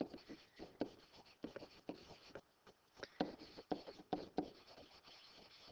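Stylus writing on a tablet: irregular taps and short scratches as a line of words is handwritten, with a brief pause a little before halfway.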